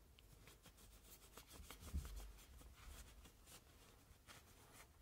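Faint rubbing and light scraping of a microfiber cloth wiping the inside of a pistol slide, with small clicks of handling, as solvent-loosened carbon is wiped off. A soft low bump about two seconds in.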